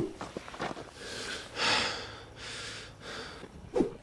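A man breathing out hard in two hissing breaths, with a few short soft knocks around them.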